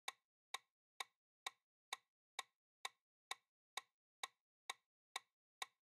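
Quiz countdown timer ticking: short, sharp ticks, evenly spaced at about two a second.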